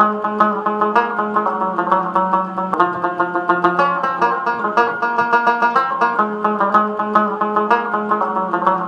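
Background music: a fast plucked-string tune of quick picked notes over a held low note.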